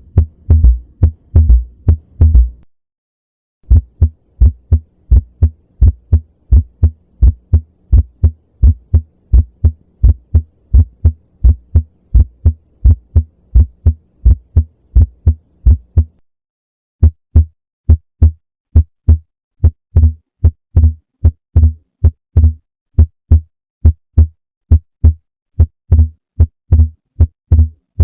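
Recorded heart sounds from auscultation: paired lub-dub beats in a steady rhythm. Three separate recordings are heard, parted by a short silence near the start and another about halfway through.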